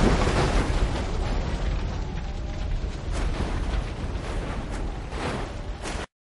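Loud, rough rumbling noise of a race car burning on the track after a crash, with a few sharp cracks in the second half; it cuts off abruptly about six seconds in.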